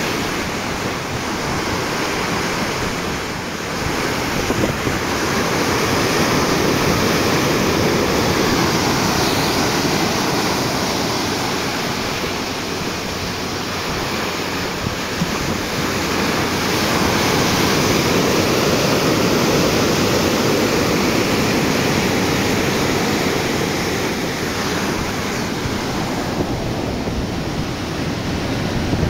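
Sea water rushing and splashing along the hull of a moving boat, with wind buffeting the microphone; the rush swells and eases slowly.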